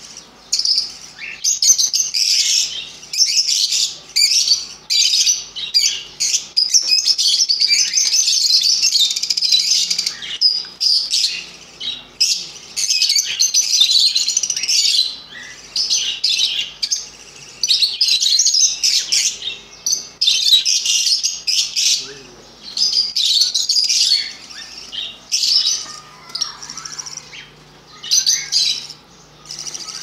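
A flock of caged budgerigars chirping and chattering rapidly and continuously, with a few short lulls.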